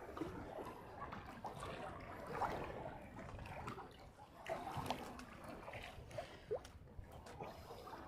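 Sea water lapping and gurgling against the hull of a small fishing boat, with scattered small knocks.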